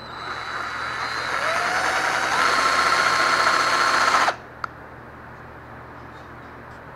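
Cordless drill boring a hole through a thin plastic tail light housing. The motor whine rises in pitch in a couple of steps as it speeds up, then stops abruptly about four seconds in, followed by a single click.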